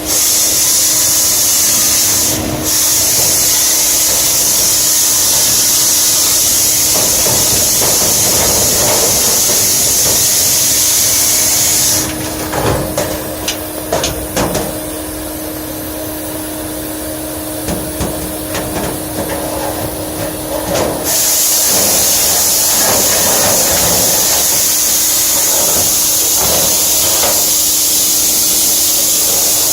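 Compressed-air gun blowing through sheet-metal ductwork during duct cleaning: a loud, steady hiss over a steady hum. The hiss cuts off for about nine seconds near the middle, leaving knocks and rattles in the duct, then starts again.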